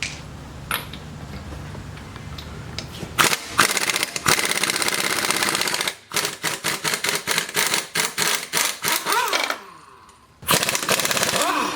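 Pneumatic impact wrench hammering on suspension bolts: one long burst, then a string of short bursts, then another burst near the end.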